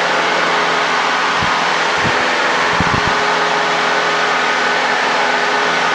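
Cessna 172's piston engine and propeller droning steadily, heard from inside the cockpit in flight, with a few dull low thumps about two to three seconds in.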